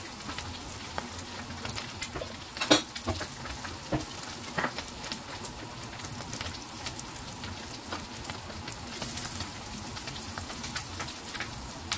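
Scrambled eggs frying in hot oil in a non-stick pan, being browned crisp: a steady sizzle with scattered crackles and a louder crack nearly three seconds in.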